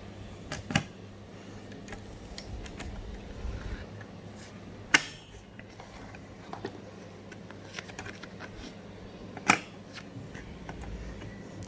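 Three sharp plastic clicks, about four seconds apart, amid faint handling noises: the push-pin legs of a stock CPU cooler fan being pressed down and snapping into the motherboard's mounting holes.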